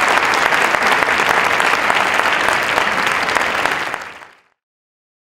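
Large audience applauding steadily; the applause fades out about four seconds in.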